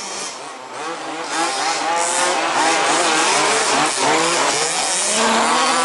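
Several 1/5-scale RC buggies' small two-stroke petrol engines racing, overlapping and revving up and down with wavering pitch as the cars go round the track. It grows louder about a second in.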